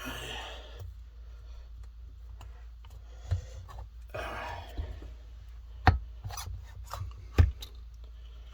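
Two-stroke engine cylinders being worked off the crankcase by hand: two scraping slides and a scatter of clicks, with two sharp metal knocks about a second and a half apart near the end, over a steady low hum.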